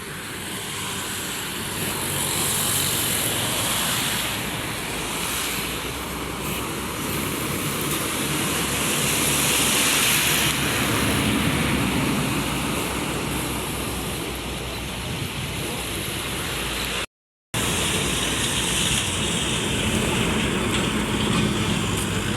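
Bus and traffic noise: engines running under a steady rushing noise that swells and fades twice, with no horn sounding. The sound drops out completely for a moment about two-thirds through.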